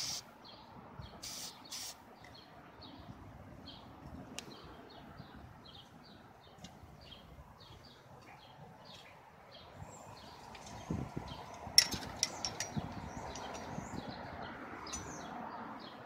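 Two short hisses of an aerosol spray can of matte acrylic clear coat about a second in, then a bird chirping over and over. A few clicks and rustles of handling follow a little after the middle.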